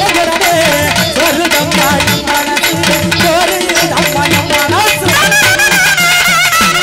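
Instrumental break of a Tamil folk song: drums keep a fast, even beat under a wavering melody line. A higher melody enters about five seconds in.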